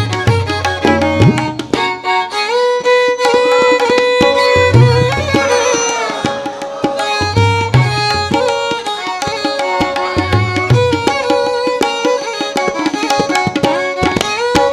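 Instrumental passage of a naat: tabla playing a steady rhythm under a violin-like string melody, with deep bass-drum strokes about every three seconds.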